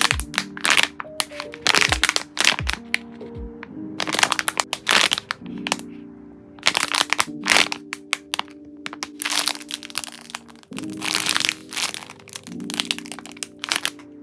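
Plastic packaging bags crinkling and crackling loudly as hands handle them, in irregular spells a second or two apart.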